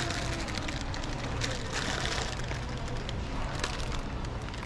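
Supermarket background noise: a steady low hum under an even hiss of indistinct shop activity.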